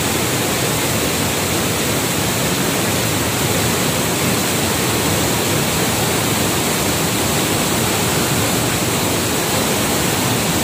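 Waterfall and fast-flowing stream: a loud, steady rush of falling and tumbling water.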